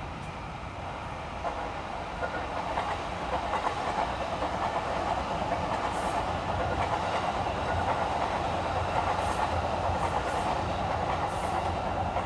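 Train running on steel rails: a continuous rumble of wheels on track that grows gradually louder.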